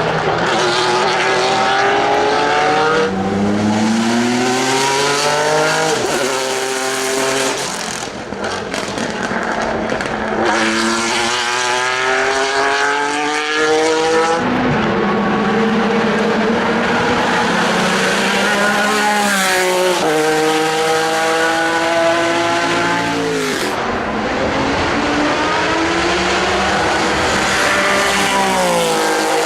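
Pilbeam MP91 LMP2 race car's JPX/Mader V6 engine running hard. Its pitch climbs repeatedly and breaks off abruptly at each gear change, with one long falling stretch midway as it slows.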